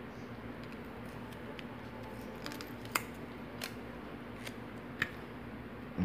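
A handful of small, sharp metal clicks as a key on a split key ring is handled and turned over in the fingers. The two clearest come about three seconds and five seconds in.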